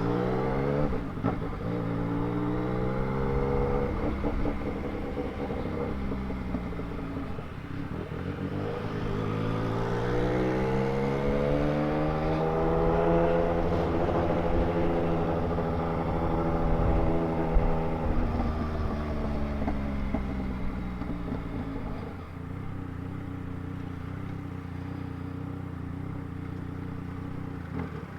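Yamaha Tracer 900GT's three-cylinder engine through a 3-into-1 exhaust, riding along. The engine note climbs, holds high for several seconds, then falls away about three quarters of the way through and settles to a low steady note.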